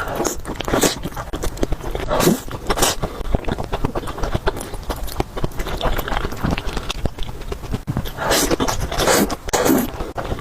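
Close-miked eating of spicy noodle rolls: wet chewing and biting with many small mouth clicks, and a few louder bursts about a second and two to three seconds in and again near the end.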